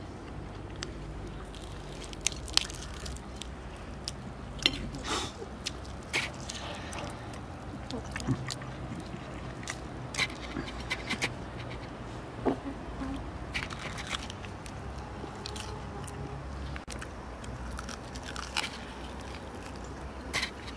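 Eating crispy fried chicken: crunching and chewing, with many scattered sharp crackles as the crust is bitten and torn, over a low steady rumble.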